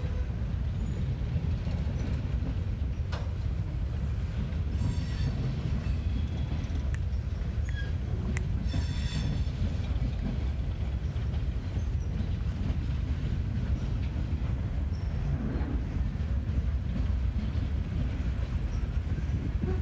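Slow CSX freight train rolling past: a steady low rumble of freight-car wheels on rail, with brief high-pitched wheel squeals about five and nine seconds in and a few sharp clicks.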